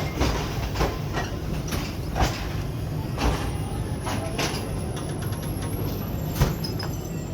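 Passenger train wheels rolling slowly over the track, with a steady low rumble and irregular sharp knocks at the rail joints. A faint thin high whine comes in about halfway.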